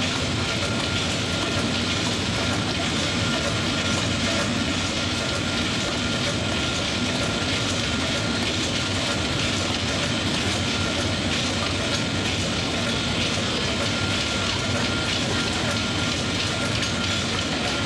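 Ship's engine-room machinery running: a loud, steady mechanical din with a faint steady high whine.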